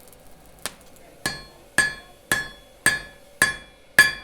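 Metal struck again and again at an even pace, about two strikes a second. Each strike rings briefly with a bright metallic tone, and the strikes grow louder after the first one.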